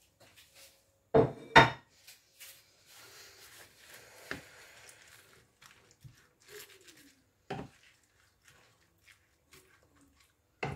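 Wooden spoon stirring spinach leaves in a stainless steel pan: soft rustling and scraping, with a few knocks against the pan, two loud ones close together about a second in.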